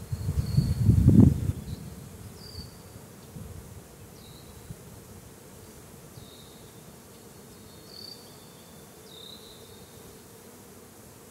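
Honeybees buzzing around an open hive crowded with bees, a steady hum. A low rumble buffets the microphone in the first second and a half, loudest about a second in.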